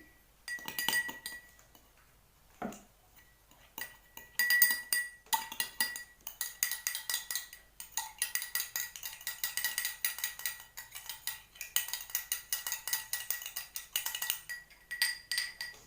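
Spoon stirring in a drinking glass, clinking against its sides while the glass rings. A few separate taps at first, then fast continuous clinking from about six seconds in, easing off with a few last taps near the end.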